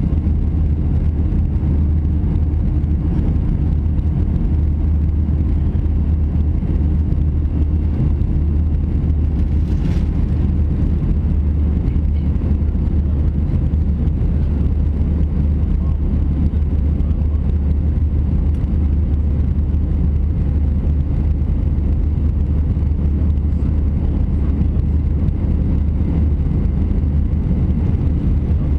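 Steady low rumble of an Airbus A320-200 in its climb after takeoff, heard inside the cabin: engine and airflow noise.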